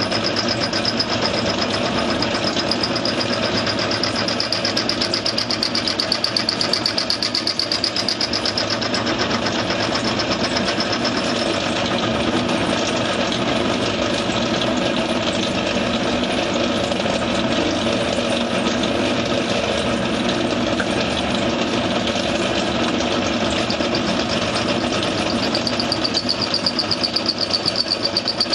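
Clarke metal lathe running steadily, its motor and gears making a fast, even mechanical rhythm. A high whine is strong for the first twelve seconds or so, fades, and comes back near the end.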